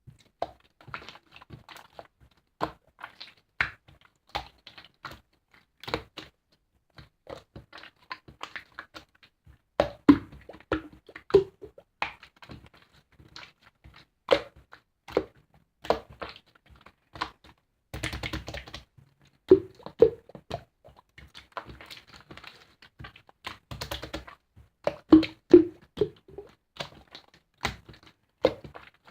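Slime being squeezed and poked by hand, giving an irregular run of sharp clicks and wet pops, several a second, with a few louder pops.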